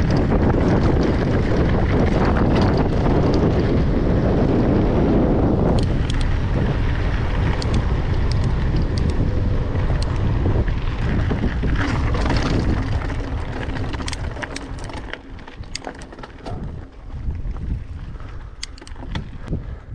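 Wind buffeting the microphone, heavy for about the first thirteen seconds, then easing and gusting, with a few sharp clicks near the end.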